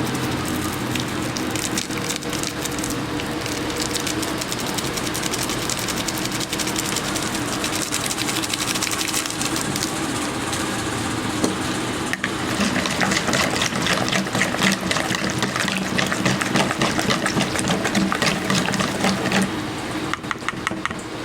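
A spoon stirring a thick yogurt and green chili marinade in a bowl, with rapid scraping and clicking that grows busier about halfway through, over a steady background hum.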